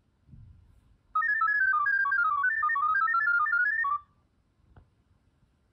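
Android phone speaker playing a ggwave data-over-sound transmission from the Waver app in its "Fastest" mode: about three seconds of rapid beeping tones hopping between pitches, starting about a second in and cutting off sharply. It carries the text "esp32 test", which the ESP32's microphone module picks up and decodes.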